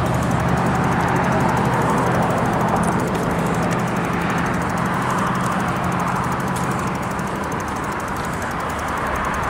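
Steady road-traffic noise from cars on the adjacent road, mixed with wind rushing over the microphone of a moving bicycle. A low engine hum fades out in the first couple of seconds, and the noise eases a little near the end.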